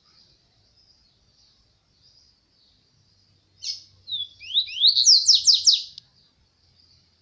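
Caged papa-capim, a Sporophila seedeater, singing one short phrase about halfway through: a couple of opening notes, then a quick run of six or seven loud rising whistled sweeps that stops abruptly. A faint high hiss runs underneath.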